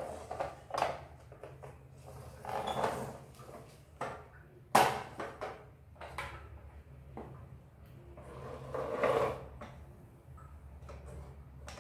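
Electric sandwich toaster and contact grill press being closed and handled: plastic lids clicking shut and the appliances clattering, with a sharp click about five seconds in and a longer rattling clatter near the end, over a steady low electrical hum.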